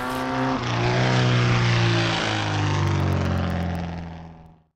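Motorcycle engine revving up as it rides by, with a gear change about half a second in, then running steady at speed; the sound fades out near the end.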